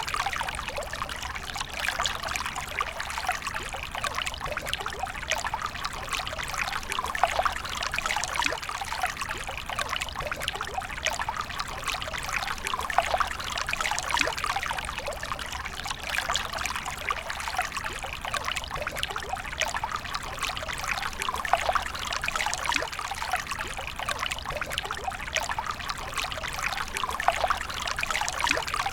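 A smooth stream of water pouring steadily, a dense, even patter of small splashes and trickling.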